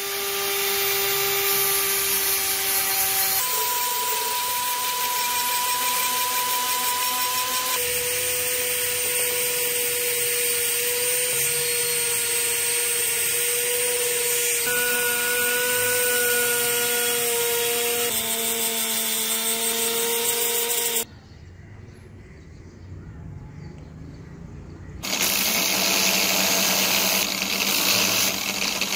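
An electric power tool running steadily, its motor whine changing pitch at several abrupt cuts. About three-quarters of the way through it drops much quieter for a few seconds, then runs loud again.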